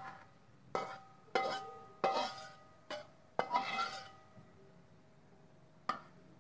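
Metal spatula clanking and scraping against a wok as stir-fried bitter melon is scooped out onto a plate: about five ringing clanks in the first four seconds. A last sharp knock near the end comes as the wok goes back down on the gas burner.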